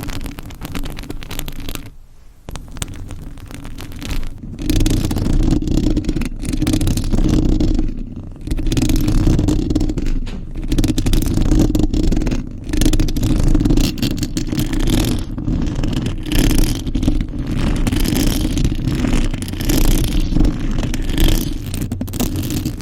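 Fingernails scratching a surface right at the microphone: dense, rapid, continuous scratching with a heavy rumble, quieter for the first few seconds and then louder.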